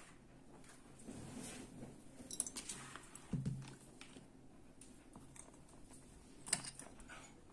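Faint handling noises of small metal parts and pipe fittings being moved about on a rubbery work mat: scattered light clicks and clatters, a dull knock a little before halfway, and a sharp click near the end.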